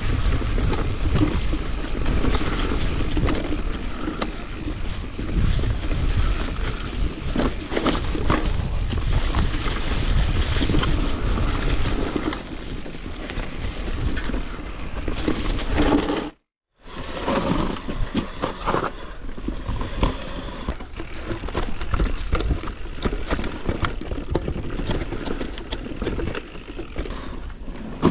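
Mountain bike riding down a steep, rocky trail, heard from an action camera on the bike or rider: tyres rolling and knocking over rocks and roots and the bike rattling, over a steady rumble of wind on the microphone. About sixteen seconds in the sound cuts out briefly, then the same riding noise resumes.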